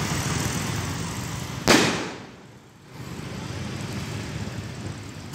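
Firework rockets bursting in the air: one sharp, loud bang a little under two seconds in and a second right at the end, over a steady rushing noise.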